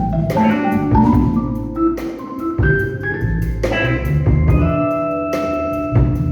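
Live blues band playing an instrumental break: drum kit and bass keep a steady beat under a lead line of quick runs that settles into a long held note about four and a half seconds in.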